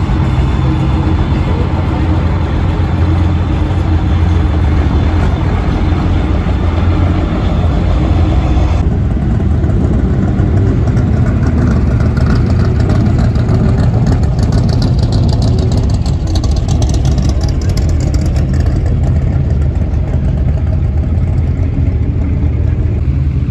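Engines of a custom Ford truck and classic cars cruising slowly past one after another, a loud, steady deep rumble. The sound shifts abruptly about nine seconds in.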